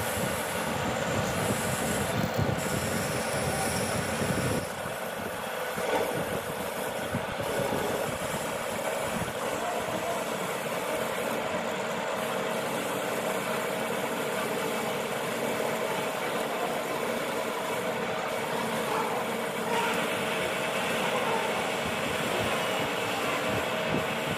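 Metal lathe running while a parting tool cuts into a spinning bar under coolant: a steady machining noise with a constant tone, and a deeper rumble that eases off about five seconds in.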